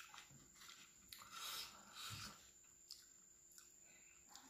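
Faint rubbing and rustling of a hand eating from a steel plate: fingers tearing flatbread and working the food, with two longer scrapes in the middle.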